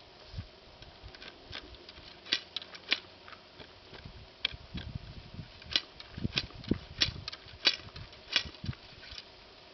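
Irregular sharp clicks and light taps of a percussion muzzleloader being reloaded at the muzzle, with ramrod and loading gear handled against the barrel, coming thicker in the second half. Low rumbles of wind on the microphone run underneath.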